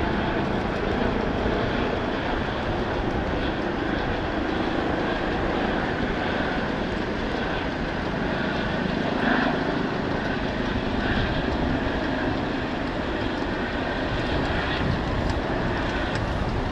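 Eurocopter EC135 helicopter with a fenestron tail rotor flying low and slow: a steady rotor and engine sound with a faint high whine.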